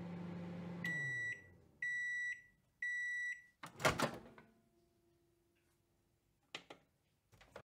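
Microwave oven running with a low hum that winds down as its timer runs out, then three long high beeps signalling that the cooking is done. A loud clunk follows as the door opens, and two short clicks come near the end.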